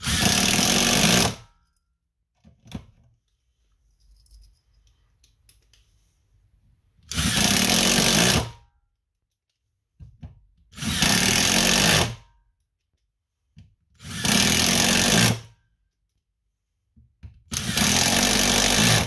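Ryobi cordless impact driver driving screws into wood: five separate drives of about a second and a half each, the driver hammering under load. Faint clicks and knocks come between the drives.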